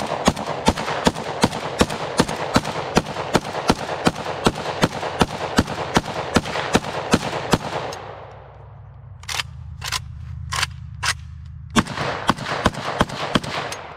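PSA-74 rifle in 5.45x39 firing rapid semi-automatic shots, about three a second for some eight seconds. After a pause of about a second the shooting resumes, spaced wider at first and quicker near the end.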